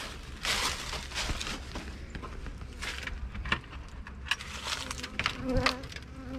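Footsteps and rustling, knocking handling noises as the top bar hive's lid is lifted open, then the steady hum of honeybees starts about five seconds in.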